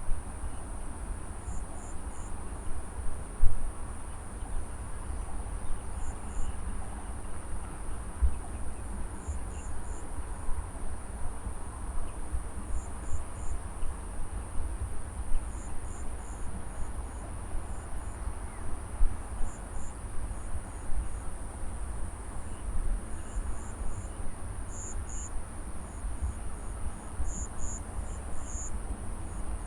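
Insects in a harvested paddy field: a steady high-pitched drone, with short chirps in groups of two to four every few seconds. Under it runs a low, unsteady rumble.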